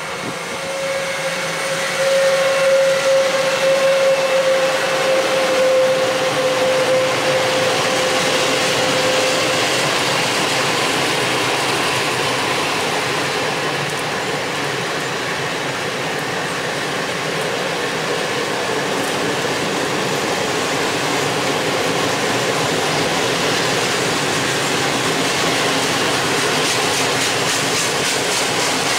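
Freight train of Cemet cement hopper wagons behind a Gama 111Ed electric locomotive rolling past, with the wagon wheels running steadily over the rails. A steady high whine is heard over the first nine seconds, fading away.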